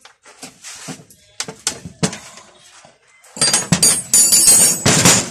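Metal tools and valve parts clinking and knocking on a steel-strewn workbench: scattered clicks at first, then a loud clatter of ringing metal about three and a half seconds in.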